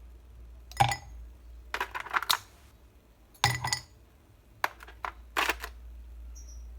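Ice cubes dropped one at a time into a glass, each landing with a sharp clink; about half a dozen clinks, irregularly spaced.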